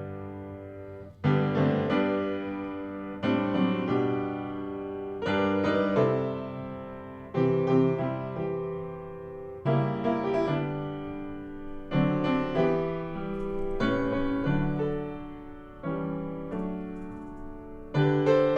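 Piano playing a slow hymn, with chords struck about every two seconds and each left to fade.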